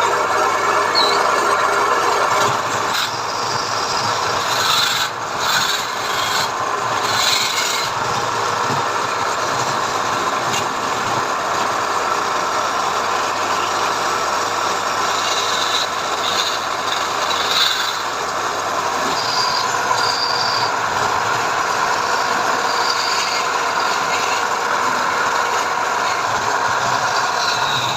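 A tool working wood with a steady, continuous rasping noise, without pauses or an even stroke rhythm.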